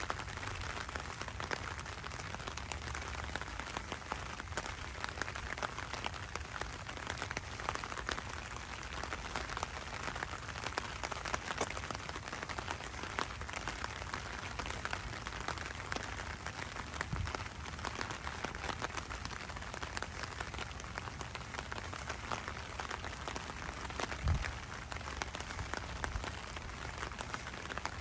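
Steady rain falling on a wet street, a dense patter of drops. A single low thump comes about three-quarters of the way through.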